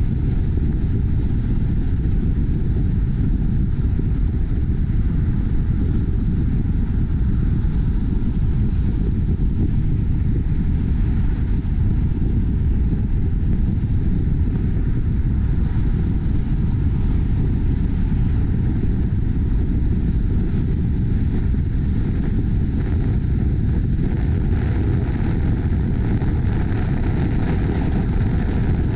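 Car driving at speed, heard from a camera mounted outside on the bonnet: a steady low rumble of wind and road noise that stays even throughout.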